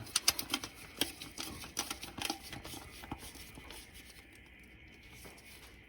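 Hand ratchet clicking in quick runs as a fuel pump mounting bolt is run down. The clicks thin out and stop about two and a half seconds in.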